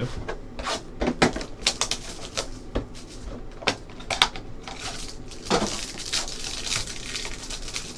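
Cellophane wrapping crinkling and tearing off a trading-card box, with sharp taps and clicks of the cardboard being handled, and a denser crinkle from about five seconds in.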